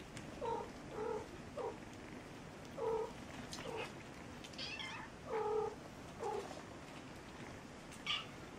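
Mother cat and kittens meowing: about seven short, low meows spread through, with higher, thinner mews about halfway and again near the end.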